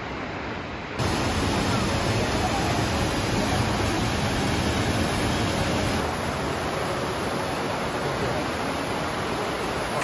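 Steady rushing of falling water from Nikko's waterfalls and river rapids, first Kegon Falls and then the fast river at Ryuzu Falls. It gets suddenly louder about a second in.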